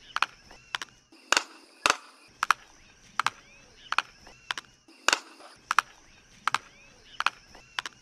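Jabiru stork clattering its bill: sharp, hollow clacks, some single and some in quick doubles, about one or two a second.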